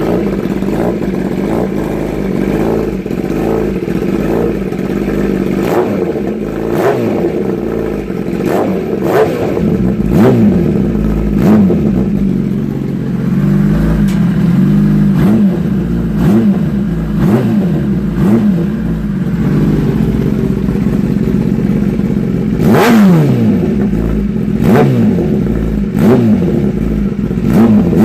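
2016 Kawasaki ZX10R's inline-four engine running through a freshly fitted Austin Racing GP1R exhaust, with one baffle left in. The engine is revved in quick throttle blips, about a dozen of them, each rising and falling sharply before it drops back to idle.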